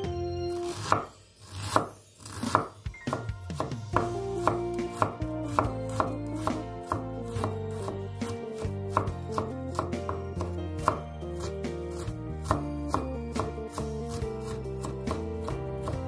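Large kitchen knife chopping fresh ginger on a wooden cutting board: a few loud, separate cuts in the first seconds, then steady quick chopping at about three strokes a second as the ginger is minced. Background music plays under it.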